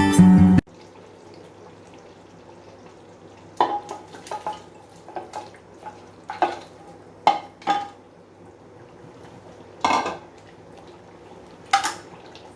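A spoon knocking and scraping against a cooking pot as the soup is stirred: scattered short clinks, a few at a time, over a faint steady low hum. Guitar music cuts off about half a second in.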